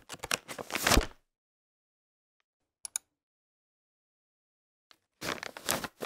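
A tissue pulled out of a dispenser box, a rustle lasting about a second. Two faint clicks follow in the middle, then another tissue is pulled near the end.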